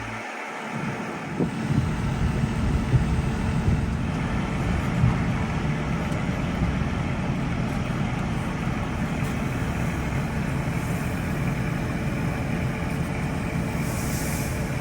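Combine harvester running steadily: a continuous low mechanical rumble with a constant hum.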